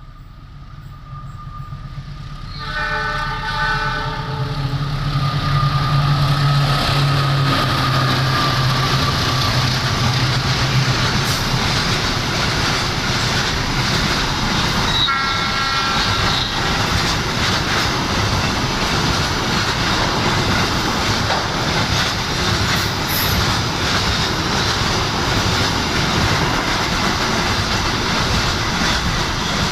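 Indonesian diesel-hauled passenger train approaching and passing: the locomotive's horn sounds for about two seconds a few seconds in, and again briefly about halfway. The diesel engine hum and a loud, steady rumble and clatter of wheels on the rails fill the rest.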